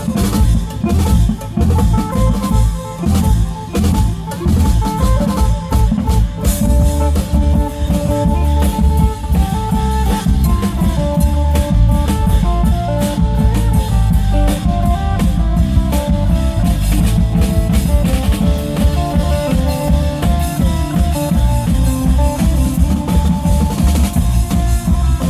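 Isan klong yao long-drum band playing a dense, driving beat, with a phin lute carrying the melody over the drums.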